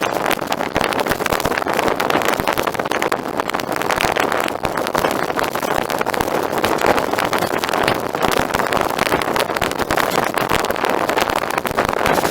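Steady rushing noise of a boat underway, wind and water over a running motor, with rapid fluttering throughout.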